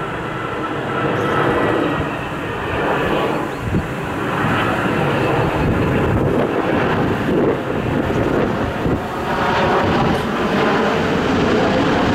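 Boeing 787-9 Dreamliner on final approach with its landing gear down, its twin turbofan engines giving a steady jet noise that grows a little louder in the last few seconds as it passes.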